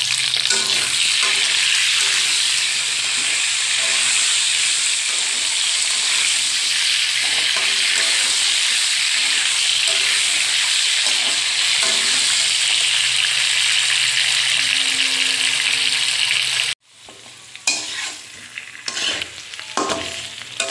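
Potato wedges sizzling in hot oil in a wok, frying until brown, while a slotted spatula stirs and turns them. The sizzle cuts off suddenly about three-quarters of the way through. After that there are only scattered scrapes and knocks of the spatula in the pan.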